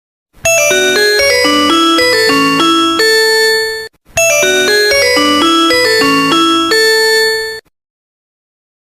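A Nokia mobile phone ringtone: a short melody of separate notes, about three and a half seconds long, played twice with a brief pause between.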